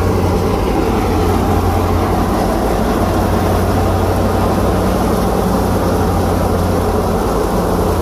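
Tractor-driven wheat threshing machine running steadily: an even low engine drone with a dense rushing noise over it.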